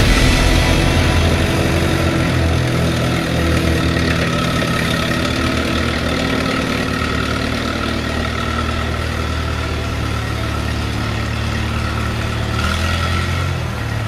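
Vehicle engine idling steadily, picking up slightly near the end.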